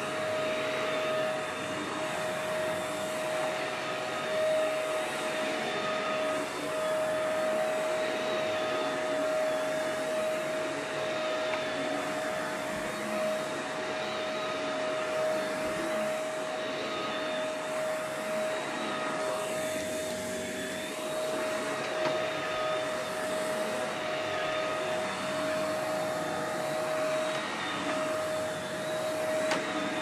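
Shark Navigator NV201 upright vacuum cleaner running and being pushed back and forth over carpet, a steady motor whine over the rush of air. It is running normally, with no fault found after a reported clog.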